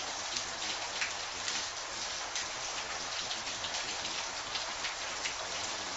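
Steady rain falling: an even hiss with many separate drops striking close by.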